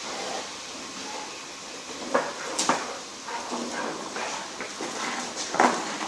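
A lump of iron being pushed and rolled across a hard floor by a dog, scraping, with a few sharp knocks about two seconds in and the loudest near the end.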